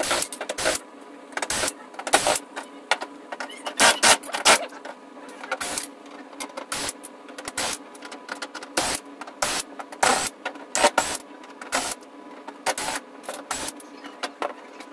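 Cordless drill-driver backing out the screws of a flat-screen TV's plastic back cover in short runs, with many irregular sharp clicks and clatters of screws and the cover being handled.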